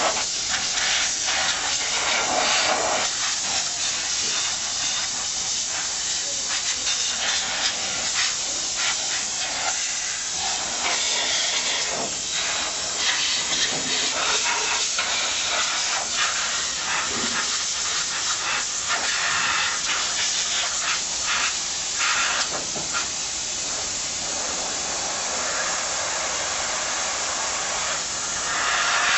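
Dry vapor steam cleaner jetting low-moisture steam at about 250 °F from its nozzle: a steady, loud hiss that swells and eases a little as the nozzle is worked over the surface.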